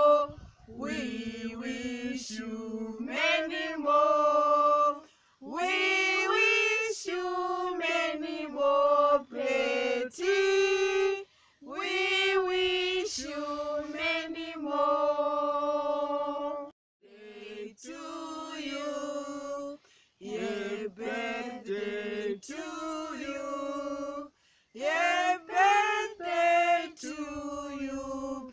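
Small unaccompanied group of women's and a man's voices singing a song together, in phrases separated by short breaks.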